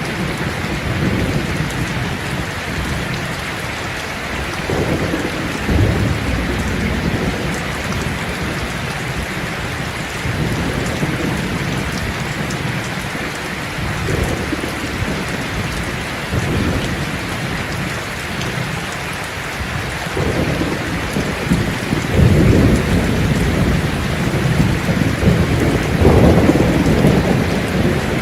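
Steady rain falling, with low rolling thunder rumbling in several times. The thunder is heaviest in the last third.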